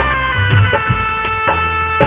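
Instrumental break in a Bengali song, with no singing: a sustained, held melody line over a steady drum beat and low bass.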